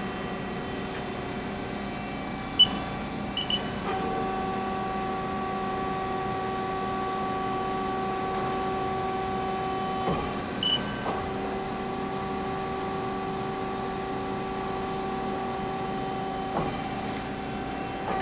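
Programmable hydraulic tailstock of a Haas ST-30 CNC lathe being jogged: a steady mechanical whine starts about four seconds in, cuts out for about a second with a click near the middle, then resumes over the machine's background hum. A few short clicks and high beeps come in the first few seconds and once more near the middle.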